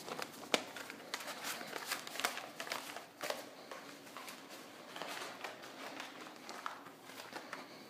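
Irregular soft clicks and rustling in a small room: footsteps and handling noise from someone walking with a camera, with a couple of sharper knocks, one about half a second in and one about three seconds in.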